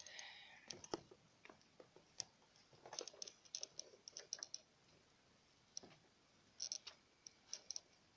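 Faint, irregular sharp clicks and light knocks in two quick clusters, from the bicycle's handlebar area where the phone sits loosely propped and shifting.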